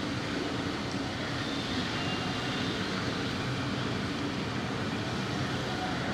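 Busy street ambience: a steady, dense wash of traffic noise, with faint high tones briefly near the middle.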